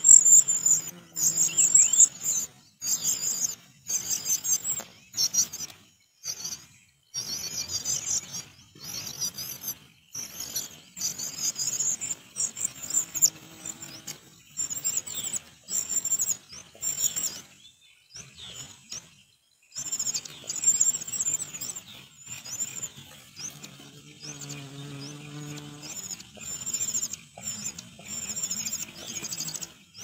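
Cuckoo chick begging for food from its foster parent: rapid, high-pitched cheeping in repeated bursts of about a second, with a short lull about two-thirds of the way through.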